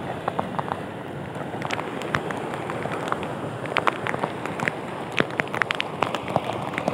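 Steady wash of choppy sea water and surf around someone standing in it, with scattered sharp clicks and ticks.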